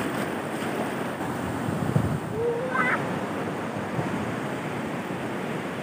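Fast-flowing floodwater of a swollen river rushing steadily.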